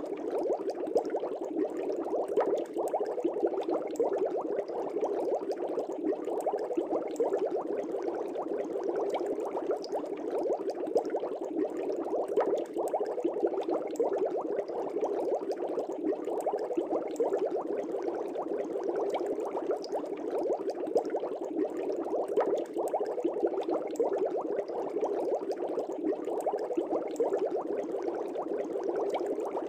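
Air bubbles streaming steadily through aquarium water, a dense unbroken bubbling made of many small quick pops.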